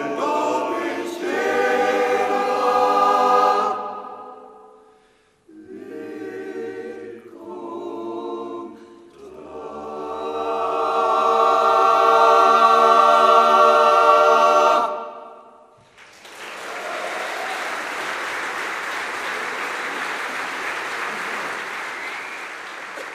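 Male voice choir singing a cappella. A phrase fades out about four seconds in, two short phrases follow, then a long final chord swells up, is held and cuts off about fifteen seconds in. The audience then breaks into steady applause.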